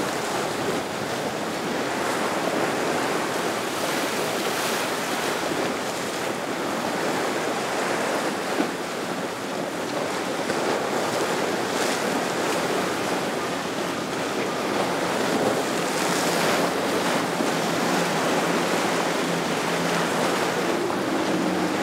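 Steady rush of wind and choppy sea water, with wind buffeting the microphone. Near the end the hum of a center console boat's twin outboard motors comes in faintly.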